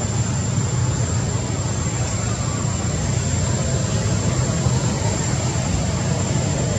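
Steady low engine rumble, like vehicle traffic, with a thin high steady tone on top.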